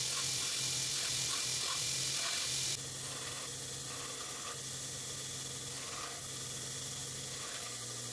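Belt grinder running with steel held against the abrasive belt, a steady grinding hiss over a low motor hum. The hiss drops in level suddenly about three seconds in and then carries on.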